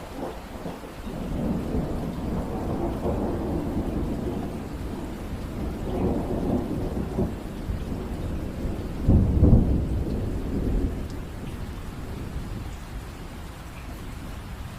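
Steady rain with a long roll of thunder that swells over the first couple of seconds, surges again about six seconds in, is loudest about nine seconds in, and rumbles away before the end.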